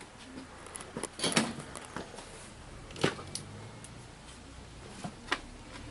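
A handful of sharp clicks and knocks, garage door hardware being handled and knocked during repair work. The loudest come a little over a second in and about three seconds in, with a smaller one near the end.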